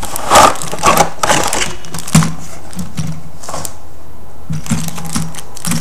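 A cardboard model-kit box and its contents being handled and opened: rustling with a few sharp knocks and clicks in the first couple of seconds, then softer scattered handling noise.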